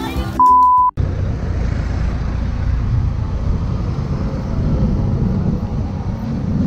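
A brief high beep, then steady road and wind noise from a moving motorcycle, with the engine running underneath.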